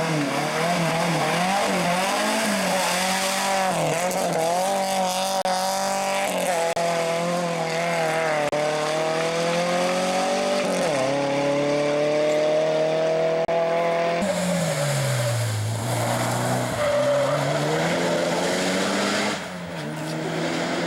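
Rally car engines run hard at high revs. The note climbs and drops back sharply with each upshift as a car accelerates away, then falls steeply about two-thirds of the way through as the next car comes through the bend.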